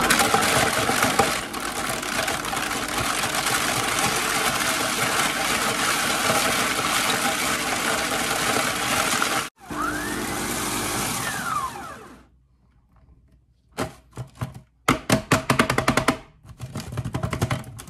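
Small electric food processor running at full speed, chopping Nice biscuits into fine crumbs. It cuts off abruptly about nine seconds in, then runs a second, shorter burst with a motor whine that rises and falls as it spins up and down. A string of sharp clicks and knocks follows near the end.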